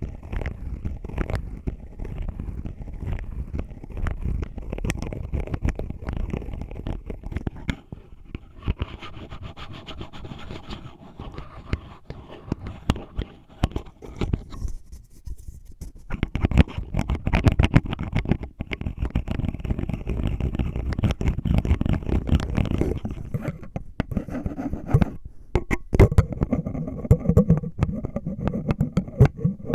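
The plastic lid of a melon-shaped ice-cream container scratched and tapped for ASMR: a rapid run of scratchy strokes and small clicks with a heavy low rumble, pausing briefly about halfway.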